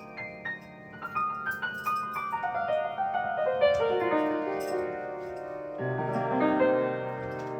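Music: single keyboard-like notes stepping steadily downward in pitch in a long descending run, with a low chord coming in about six seconds in.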